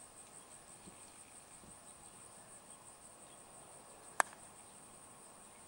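A golf club striking the ball once, a single sharp click about four seconds in, over a steady high, pulsing chirr of insects.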